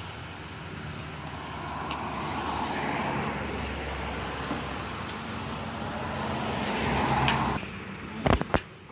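A motor vehicle running, engine hum and road noise swelling and then cutting off abruptly near the end, followed by a couple of sharp knocks.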